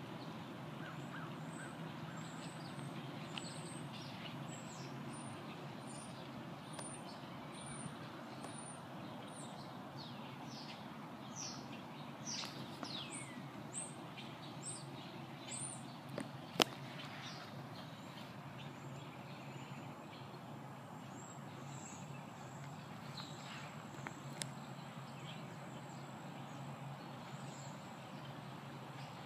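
Birds chirping in runs of short, high, falling chirps over a steady low outdoor hum. A single sharp click sounds a little past halfway through.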